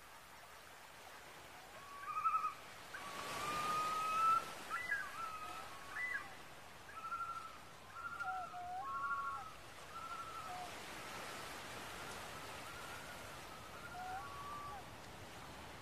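Common loons calling: a long, slightly rising call, then a string of short wavering notes that grow fainter toward the end, over a soft, steady background hiss.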